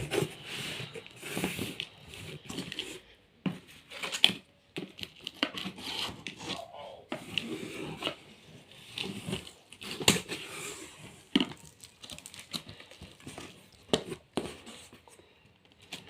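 Shipping packaging on a ceiling fan's cardboard box being torn open and crumpled by hand: irregular ripping and rustling with occasional sharp snaps.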